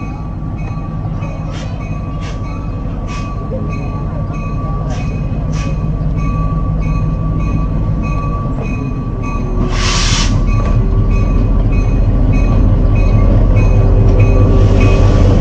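A train approaching on the railroad, its low rumble growing steadily louder. There are several sharp clicks in the first few seconds and a brief hiss about ten seconds in.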